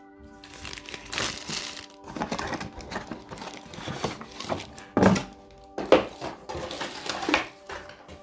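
Packaging being handled during unboxing: irregular crinkling and rustling, with a few sharper knocks about halfway through and near the end. Steady background music plays underneath.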